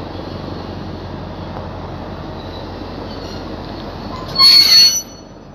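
DB class 218 diesel locomotive rumbling as it rolls slowly along the platform. Near the end comes a loud, high-pitched metallic squeal, about half a second long, as it brakes.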